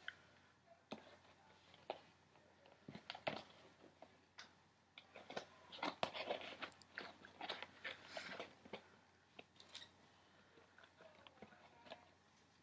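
Irregular small clicks, rattles and crinkles of a plastic toy vending machine being handled and operated, busiest in the middle.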